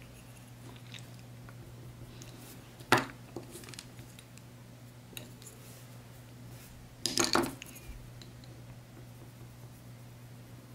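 Coloured pencils clicking against each other and the desk as they are put down and picked up: one sharp click about three seconds in, then a short clatter of several clicks about seven seconds in, over a low steady hum.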